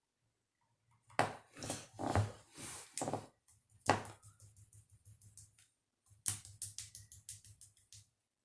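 Makeup brush working close to the microphone: a few short scratchy swishes, then a quicker string of light taps and flicks near the end.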